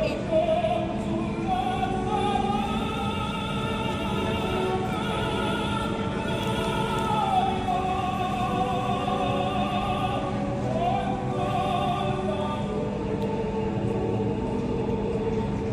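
Operatic singing over music: a voice holds long notes with vibrato, gliding between pitches, with choir and orchestral backing.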